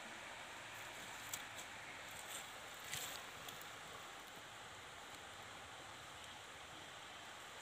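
Faint steady outdoor ambience at the water's edge, with a few soft clicks and rustles about one and a half and three seconds in.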